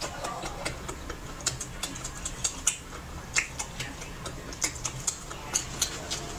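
Sharp, irregular clicks and small cracks of seafood shell being broken open and picked apart by hand while eating, a couple a second, over a low steady hum.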